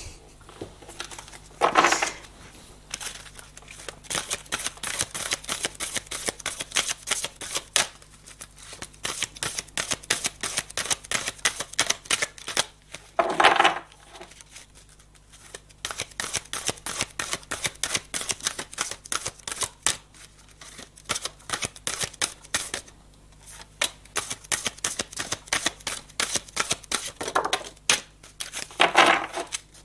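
A deck of cards being shuffled by hand: long runs of rapid soft card clicks in three spells, with a few louder single knocks between them.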